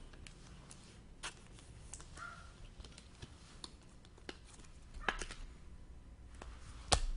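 Trading cards being handled: scattered light clicks and rustles, with a sharper click about five seconds in and another near the end.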